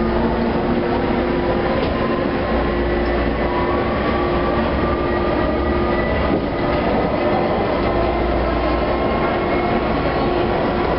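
Ride noise inside a UTDC-built H6 subway car in motion: a steady rumble of wheels on track with a constant hum, and a faint whine that rises slowly in pitch through the middle.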